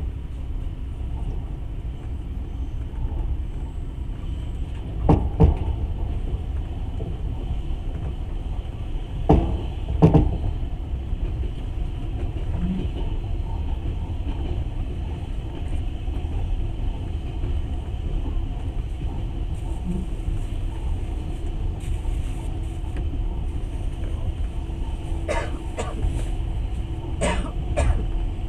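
Passenger train running steadily, a low rumble of wheels on rail. A few sharp knocks come in pairs, about 5 and 10 seconds in and again near the end, typical of wheels crossing rail joints.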